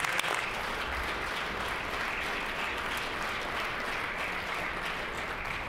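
Applause from members of a legislative assembly: many people clapping at once, a dense steady patter that eases off near the end.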